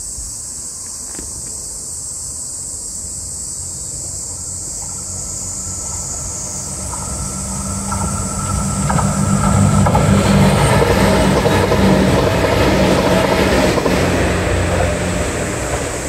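Diesel railcar approaching and passing on the line, its engine running with a low hum under the rumble of wheels on rail. It grows louder through the first half, is loudest for several seconds in the second half, then begins to fade near the end.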